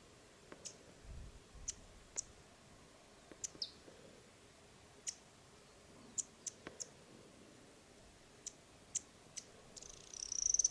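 Yellow cardinal sounds: short, sharp high clicks at irregular intervals, about a dozen, with one brief falling chirp about three and a half seconds in and a quick run of high chirps starting near the end.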